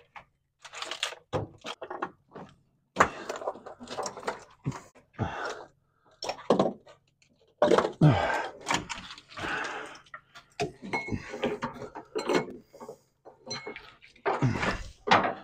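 Irregular clunks, knocks and rattling as a vehicle wiring harness and its connectors are tugged, shifted and handled.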